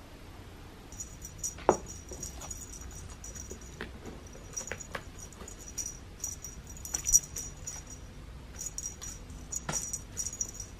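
A small bell jingling in repeated shakes as a cat plays with a dangling toy, with a few sharp knocks, the loudest just under two seconds in.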